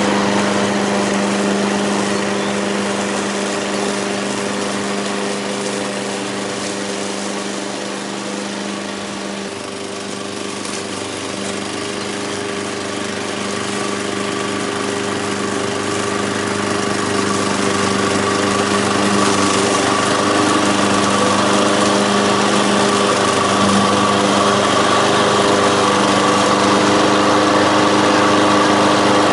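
Petrol engine of an MTD 53SPKV HW Advance self-propelled lawn mower running steadily after its repair, evenly and without misfires. It is sealed with homemade metal and paper gaskets, so there are no air leaks.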